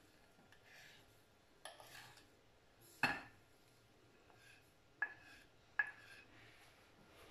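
A wooden spoon scraping sugar off a ceramic dish into a steel saucepan of milk. There are faint scrapes, and four sharp knocks of spoon and dish against the pan, the loudest about three seconds in.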